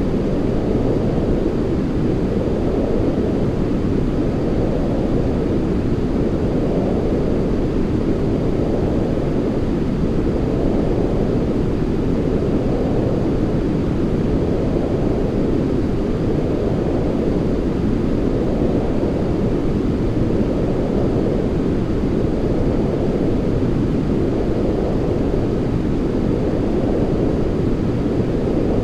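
Steady sleep noise track: a deep, even rushing noise, weighted to the low end, that swells gently about every two seconds.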